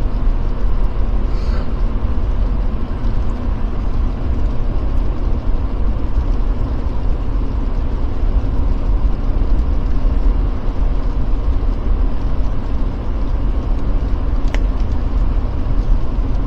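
Jeep Gladiator driving on a snow-covered road: a steady low rumble of engine and tyre noise. A single short click is heard near the end.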